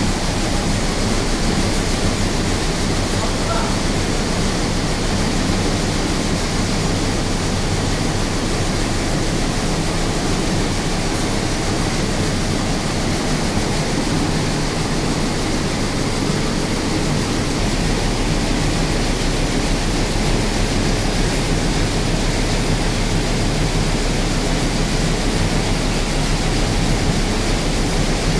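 Lässer MD5 schiffli embroidery machine running at about 400 rpm: a steady mechanical din with a low hum, which grows stronger about two thirds of the way in.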